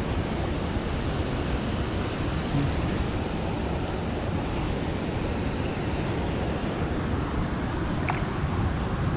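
Steady rush of flowing river water, an even noise with no let-up, with one faint click near the end.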